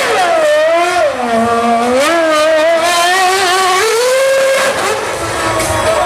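Formula 1 car engine revving at high pitch: the revs drop over the first second or so, then climb back and waver up and down.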